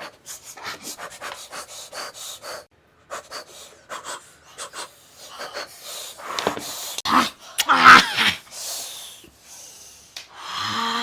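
A person eating mutton, with a rapid run of wet chewing and lip-smacking clicks, then loud gasps and panting breaths from about six seconds in, as from the heat of spicy food.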